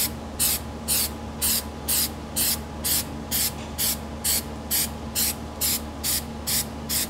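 Aerosol can of Flex Seal liquid rubber spraying, the hiss swelling and fading in an even pulse about twice a second.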